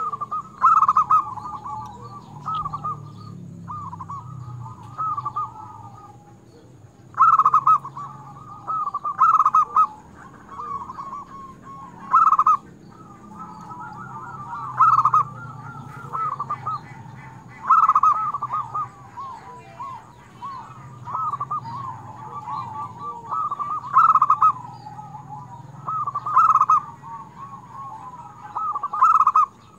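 Zebra dove (perkutut) singing steadily: phrases of quick cooing notes, each rising to a louder ending, repeating every two to three seconds.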